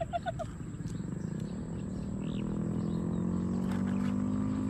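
A motor vehicle's engine droning along the expressway, growing steadily louder from about a second and a half in, its pitch slowly rising.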